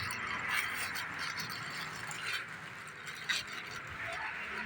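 Rustling and scattered clicks of a parcel's packaging being handled and opened, with one sharper click about three seconds in.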